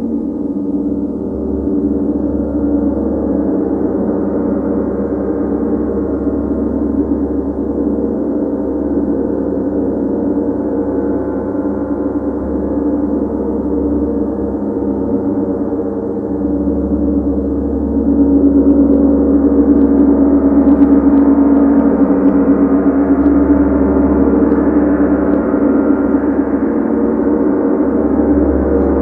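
Large tam-tam gong played with a mallet, a steady ringing drone of many overlapping tones with a deep low hum underneath, growing louder about two-thirds of the way through.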